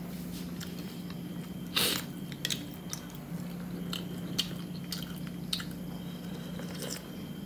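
A person eating: chewing a cocktail sausage and sipping soup from a plastic spoon, with small wet mouth and spoon clicks and one short louder noise about two seconds in. A steady low hum runs underneath.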